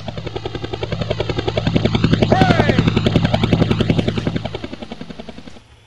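Helicopter passing over: the rapid, even chop of its rotor blades swells to a peak midway and fades away near the end, with a brief whine that glides in pitch at the loudest point.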